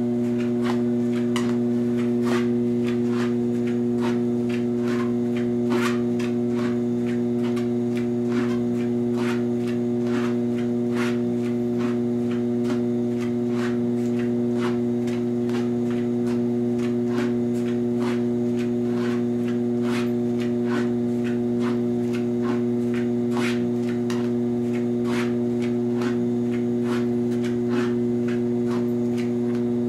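ProForm 745CS treadmill running with a steady motor hum, while a dog walking on the moving belt sets its paws down in a regular patter of light taps, about two to three a second.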